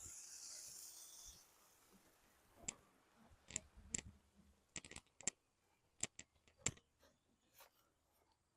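Faint hiss for about the first second, then a dozen or so sharp, irregular clicks and taps.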